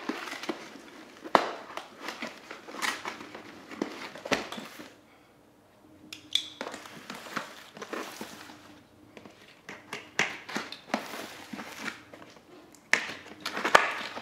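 Cardboard packaging of a boxed bag being turned over and cut open on a granite countertop: scattered sharp knocks, scrapes and crinkling, with a short quiet pause about five seconds in.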